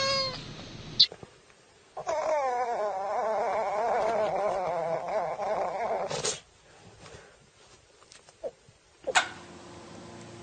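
A pet's long, wavering yowl, about four seconds long, beginning about two seconds in. There is a sharp click shortly before it and another near the end.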